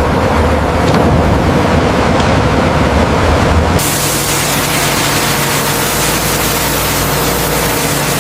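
Heavy, steady rumble that cuts abruptly about four seconds in to a loud, steady rushing hiss.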